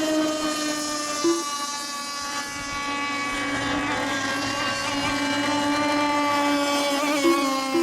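Several radio-controlled racing boats' small engines running together on the water, a steady high-pitched buzz of overlapping tones that drift slightly in pitch as the boats circle, with a couple of brief louder blips.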